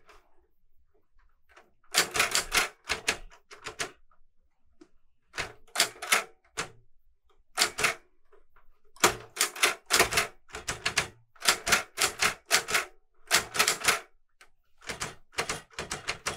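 Clover 810S manual Korean typewriter being typed on: keys and typebars striking the platen in quick runs of clicks, broken by short pauses between runs.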